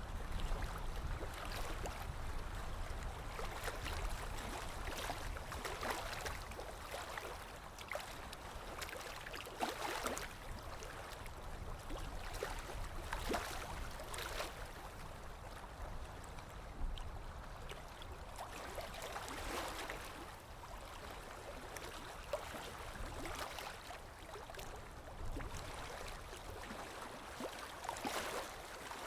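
Running, splashing water: a steady wash with scattered louder splashes and drips at irregular moments.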